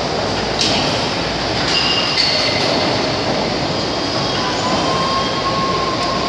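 Triple-expansion steam engine running: a steady, loud mechanical noise with faint clicks and brief thin whines, one of which comes in about four seconds in and holds for a couple of seconds.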